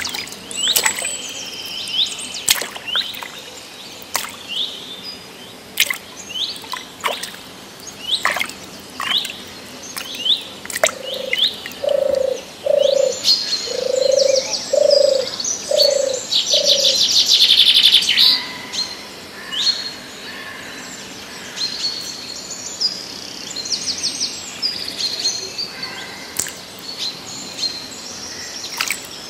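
Wild birds chirping and calling: many short, sharp high chirps, a run of six low notes a little before halfway, and a fast high trill just after them.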